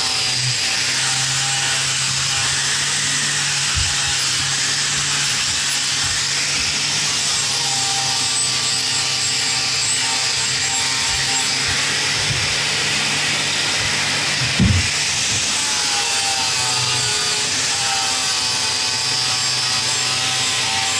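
Angle grinder with a grinding disc working the metal tubing of a Simson S51 frame loop, running steadily under load, its motor whine bending in pitch as the disc is pressed against the tube. A single short knock about two-thirds of the way through.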